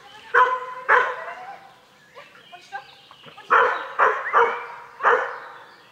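A dog barking: two sharp barks about half a second apart, then a quicker run of four barks about three and a half seconds in.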